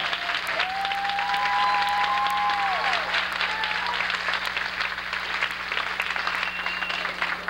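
Audience applauding after a song. One long held cheer rises out of the clapping about half a second in and dies away after about two and a half seconds.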